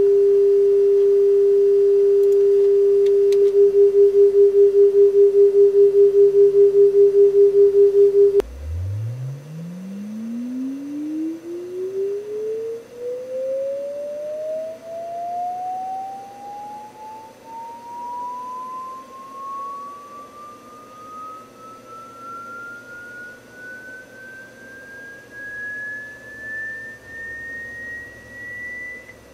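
Electronic sine-wave test tones, the kind of signal fed to an oscilloscope for display: a steady mid-pitched tone that begins pulsing about five times a second a few seconds in, then stops and gives way to a pure tone sweeping slowly upward from a low hum to a high whistle.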